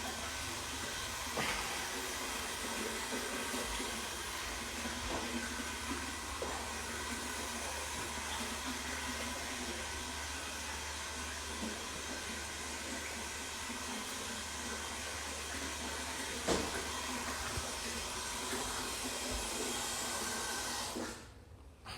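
A steady rushing hiss over a low hum, with a few faint clicks, cutting off suddenly about a second before the end.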